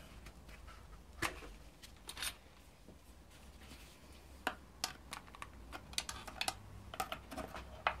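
Scattered small plastic clicks and taps as a screwdriver and gloved fingers work at the fuel injector connector clips on a BMW M52TU engine's wiring harness. The clips are old and never removed, so they are stiff and slow to release.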